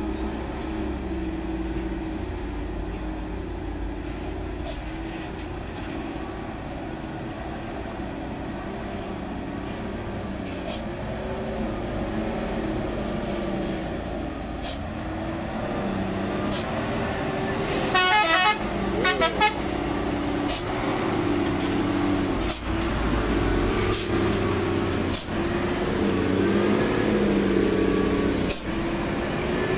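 Hino dump truck's diesel engine running steadily as the truck comes down a steep, narrow dirt cutting, growing louder as it nears and passes close by. A horn sounds briefly about eighteen seconds in, and short sharp clicks come every few seconds.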